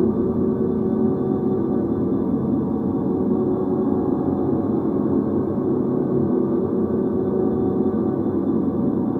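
A live ambient drone: a dense, steady low hum of many overlapping held tones, with no separate strikes or beats.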